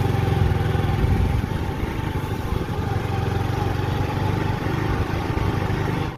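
Motorcycle engine running steadily as the bike is ridden along a dirt track.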